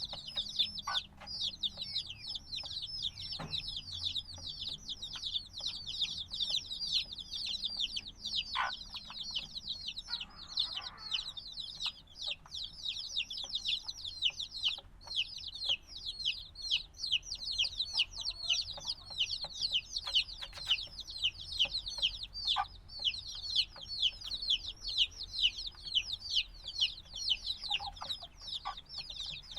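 A brood of newly hatched chicks peeping constantly, many shrill, rapid, downward-sliding peeps overlapping, with a few faint taps among them. The chicks are only a few days old and still need their mother's warmth.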